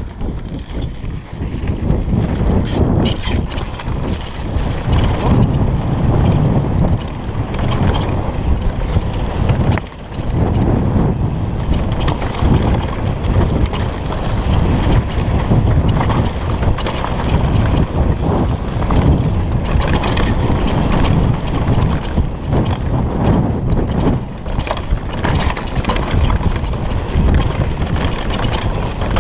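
Wind buffeting the microphone of a bike-mounted action camera during a fast downhill mountain bike descent, mixed with tyre noise and the rattle of the bike over a rough dirt trail. It drops briefly about ten seconds in.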